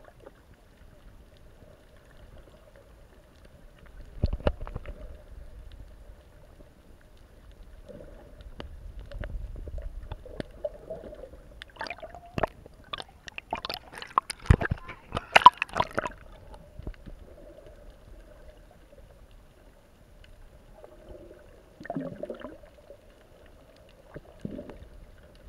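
Water sloshing and bubbling around an underwater action camera, muffled, over a faint steady hum. About twelve seconds in comes a few-second run of loud crackling splashes and bubbles as the camera moves along just under the surface.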